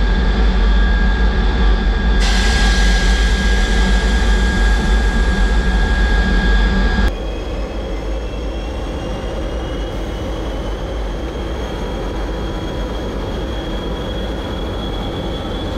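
MiG-17 turbojet engine running at low power on the ground: a loud, steady rush with a high whine. About seven seconds in, the level drops suddenly, and the whine tones then rise slowly in pitch.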